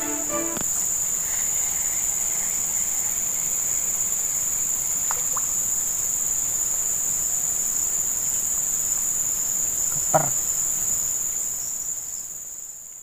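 Insects droning steadily in one continuous high-pitched buzz. A single short knock sounds about ten seconds in, and the drone fades out near the end.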